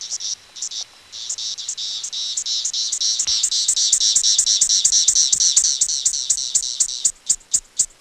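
Mating call of a male Magicicada septendecula, a 17-year periodical cicada: a rapid pulsing buzz that builds up slowly in loudness over a few seconds and then holds steady. Near the end it gives way to a series of sharp ticks, about four a second.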